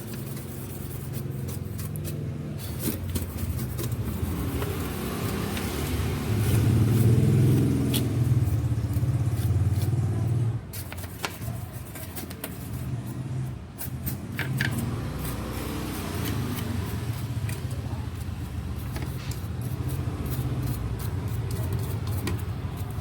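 A motor vehicle running on the road, a steady low rumble that swells louder for a few seconds near the middle.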